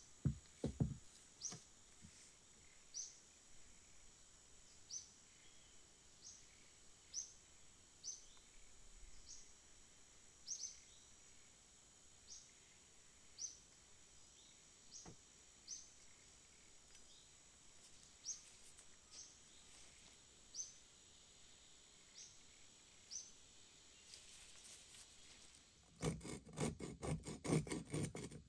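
A bird repeats a short high chirp about once a second, faint, over a quiet background. In the first second the heavy iron hammer head knocks a few times on the bench. In the last couple of seconds a steel chisel scrapes rust off the hammer head with a rough, rasping sound.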